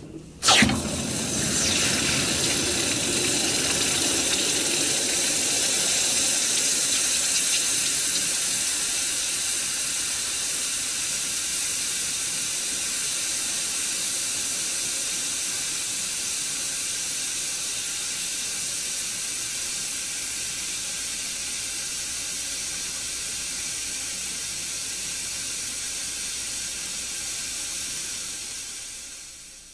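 Red-hot iron bar being quenched in a tub of water: a sharp burst of sizzling as it goes in, then a long steady steam hiss that slowly dies down and fades out near the end.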